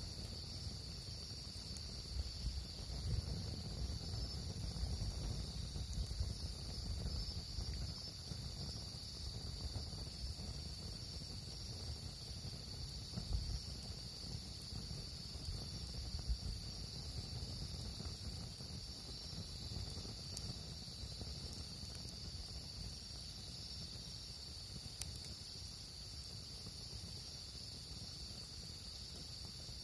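Steady high-pitched insect chirring, unbroken throughout, over a low rumble that is stronger in the first half, with a few faint clicks.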